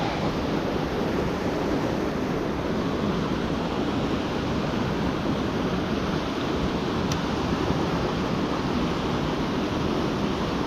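Steady rush of a small mountain creek's flowing water.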